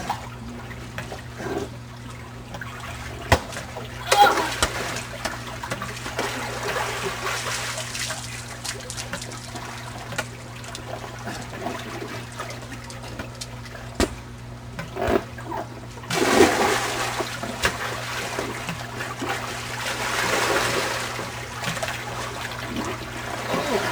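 Swimming-pool water sloshing and trickling, with louder splashes about four and sixteen seconds in.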